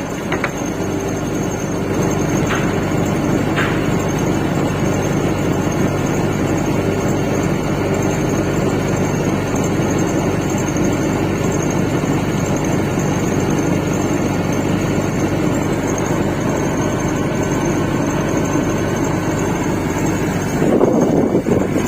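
Faulty window air conditioner compressor running with a steady, rough mechanical hum: the noise of a bad compressor. A few faint ticks come in the first few seconds, and it gets louder briefly near the end.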